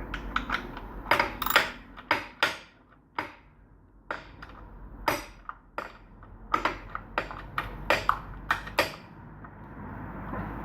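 Metal sockets, a socket adapter and hand tools clinking and clicking as they are handled and fitted together, a string of irregular sharp knocks with short pauses.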